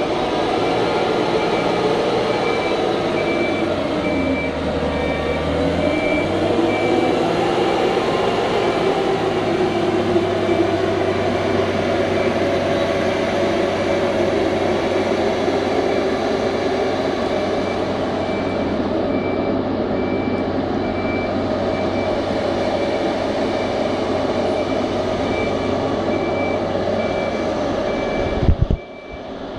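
Engine of a 110-ton Boat Lift travel lift running steadily as the lift drives and steers, with its travel alarm beeping at a regular pace throughout. Near the end there is a short thump and the sound briefly drops away.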